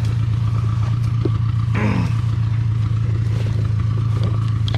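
An off-road machine's engine running steadily under light load, a constant low hum, while hauling the dead Honda Big Red through mud. About two seconds in comes a brief rattle or scrape, with scattered small knocks from the bumpy going.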